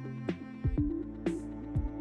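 Background music with a steady beat: sustained notes over a repeating low thump and light high ticks.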